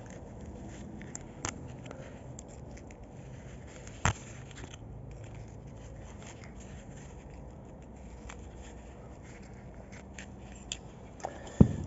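A metal pick scraping and prying at the old seal in the groove of a hydraulic cylinder's gland nut, working the brittle seal out, with a few sharp clicks. A loud knock near the end.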